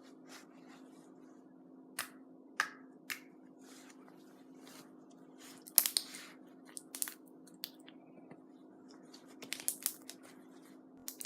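Thick slime being squished and poked by hand for ASMR: scattered sharp little clicks and pops, with a quick run of them near the end.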